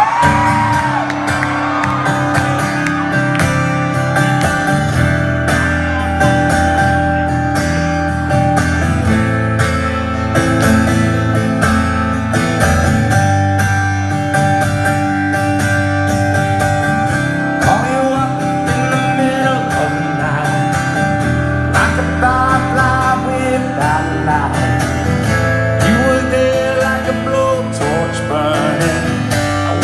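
Acoustic guitar strummed steadily with a man singing over it: a live acoustic song performance.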